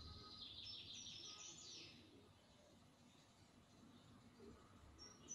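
Faint birds chirping: a run of quick high chirps in the first two seconds and more near the end, over a low outdoor rumble.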